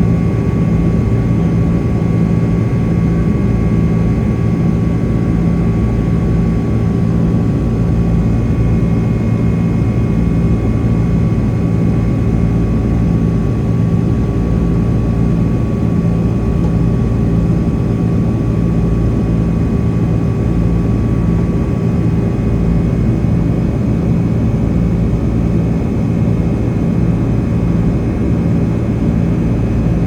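Boeing 767-300ER's twin jet engines running steadily, heard from inside the passenger cabin: a loud, even rumble with a slow, regular throb in the low hum and steady whining tones above it.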